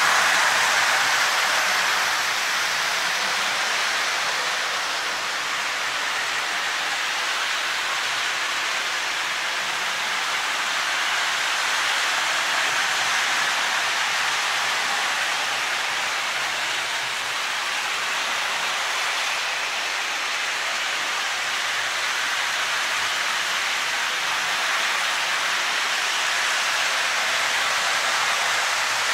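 Electric O-gauge model trains running on three-rail track: a steady, even rolling hiss with no clear beat.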